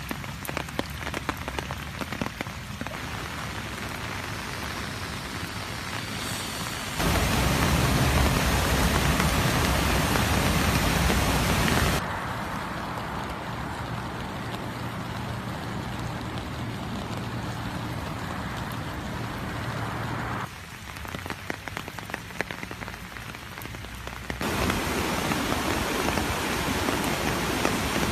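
Heavy rain and rushing stormwater, a steady noise that steps louder and quieter from shot to shot: loudest from about 7 to 12 seconds in and again near the end, where floodwater pours through a lake spillway. In the quieter stretches there is a fine crackle of raindrops.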